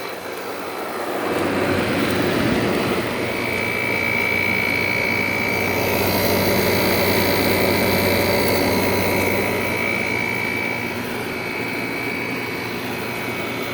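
Large Haier room air conditioners running: a steady fan and compressor noise with a low hum and a high whine, swelling after about a second and easing off near the end.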